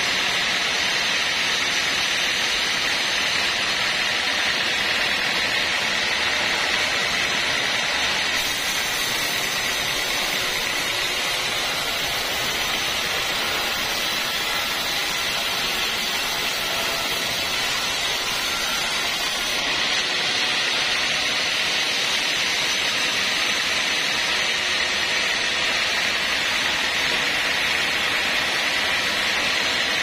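Band sawmill running steadily, its blade ripping a slab off an old log, a constant high whine over a dense hiss. For about ten seconds in the middle the sound shifts, slightly quieter and hissier.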